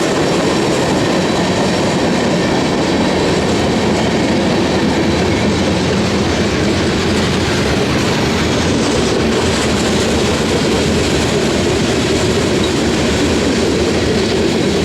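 CSX freight train's cars rolling past on the rails: a loud, steady rumble and rattle of wheels on track without letup.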